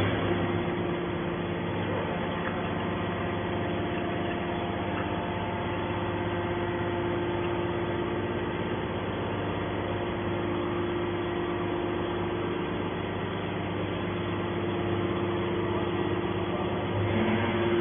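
Hydraulic scrap metal baler running with a steady machine hum that holds several fixed tones, unchanging throughout.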